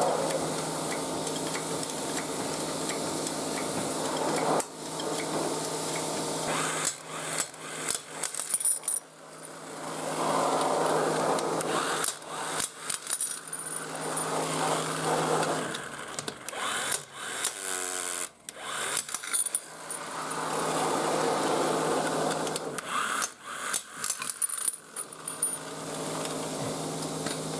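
Hand-tool work on a car wheel: scattered metal knocks, clicks and clatter in several bursts, with a quick run of clicks in the middle, over a steady low hum.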